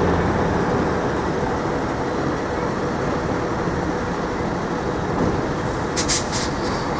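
City street traffic: a steady hum and rush of passing vehicles, with a few short sharp hisses about six seconds in.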